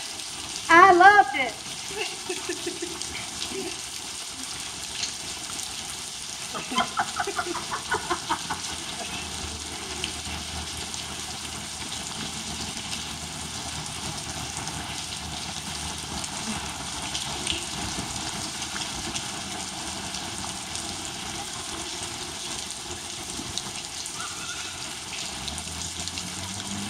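Steady rain falling on a grass field. A loud, high shout about a second in, and a short burst of voices around seven to eight seconds in.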